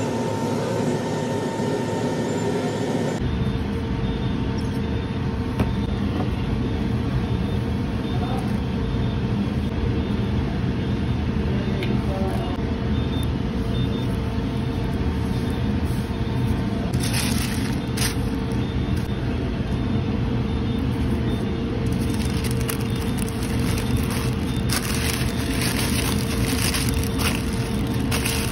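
Steady mechanical hum and rush of kitchen ventilation, with a constant mid-pitched tone over a low rumble. Over the last several seconds, burger wrapping paper crinkles and rustles.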